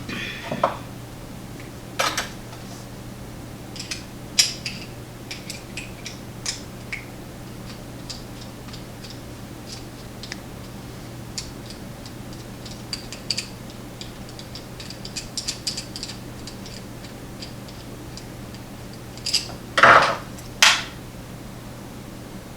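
Small metallic clicks, taps and clinks of lock-picking tools working in an American Padlock Series 700 padlock as it is picked open for disassembly. A few louder clinks come about two seconds in and a cluster of the loudest near the end.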